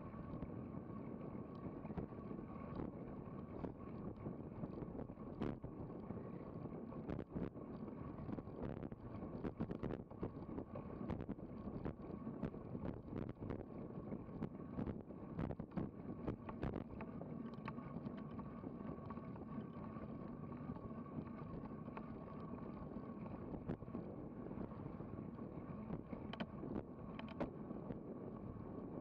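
Wind rushing over an action camera's microphone, with tyre and road noise from a road bike riding at about 23 mph. The rush is steady, broken by many scattered short clicks and knocks.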